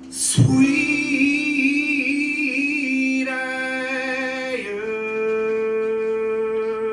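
Male folk singer holding long sung notes over his acoustic guitar. One strummed chord comes near the start, then the voice sustains a note with a slight waver, steps up in pitch twice and holds the last note for about three seconds.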